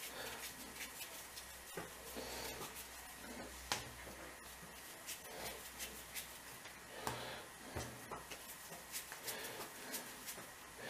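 Faint soft rubbing of yeast-free dough being rolled into balls between the palms, with a few light taps as the balls are set down on a marble counter.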